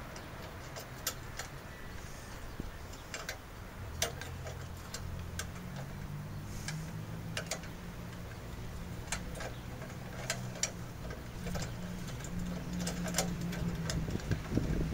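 Ratchet wrench clicking in short, irregular strokes as a nut is tightened on a light-mount bolt, over a low steady hum.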